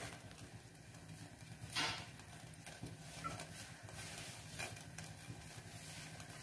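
Faint steady hum of a saucepan of water heating on a gas stove burner, with a few soft clicks and knocks, the loudest about two seconds in.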